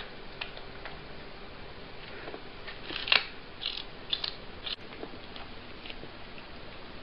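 A cat biting and chewing a wedge of watermelon: a scatter of short chewing and biting clicks, most of them between about three and five seconds in, over a steady background hiss.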